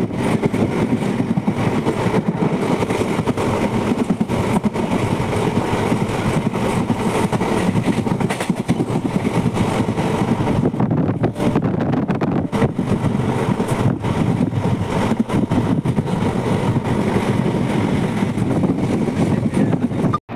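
Passenger train coach running at speed, heard at its open doorway: a steady, loud running noise of wheels on the track, with no let-up.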